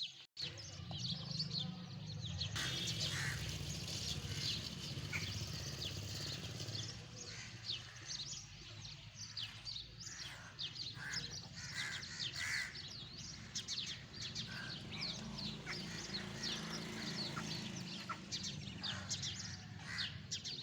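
Birds chirping busily in quick, short calls, with some harsher calls mixed in, over a steady low hum.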